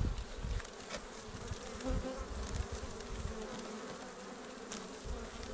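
Honeybee colony buzzing as a steady hum over the open hive, with a few faint clicks.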